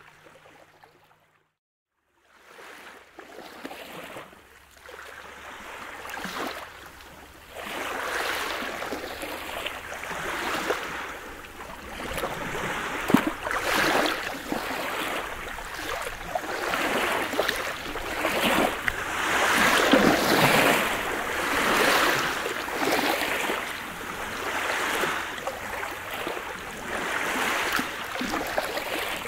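Small waves of a calm sea washing up a pebble beach and drawing back, in swells every couple of seconds. The sound cuts out briefly about a second in, then builds back and grows louder from about eight seconds on.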